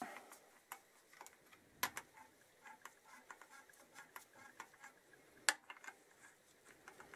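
Faint, irregular clicking of a socket ratchet working the clutch spring bolts on a Kawasaki KZ650 clutch pressure plate, with two sharper clicks about two seconds in and near the end. The bolts are being eased off a bit at a time in a star pattern so the spring pressure comes off evenly.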